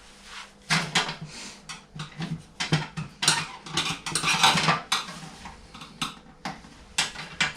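Screwdriver and metal parts of a washing machine clinking and clattering: an irregular run of sharp clicks and knocks as the machine is being dismantled.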